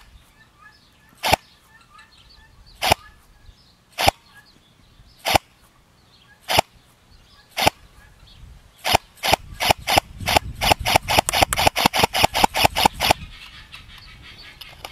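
AIRO TW electric airsoft rifle (an M4A1-style training-weapon replica) firing BBs in sharp cracks. The shots come singly, a little over a second apart, then speed up about 9 s in to a fast string of roughly five a second before stopping.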